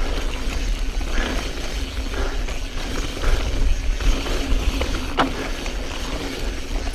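Wind rumbling on the action-camera microphone and tyre noise of a Specialized Stumpjumper S-Works mountain bike rolling fast down a dirt singletrack, with one sharp knock about five seconds in.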